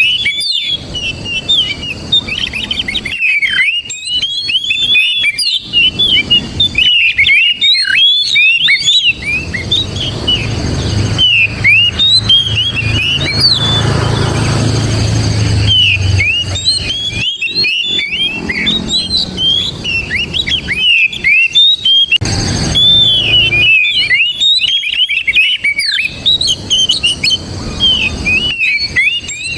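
Oriental magpie-robin singing a fast, continuous run of whistles and chirps. A low rumble sits underneath from about a third of the way in to the middle, and again briefly later.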